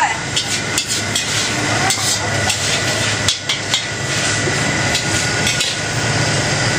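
Metal ladle clanking and scraping against a steel wok as it is cleaned, a quick run of sharp knocks in the first few seconds, over the steady rush of the gas wok burner.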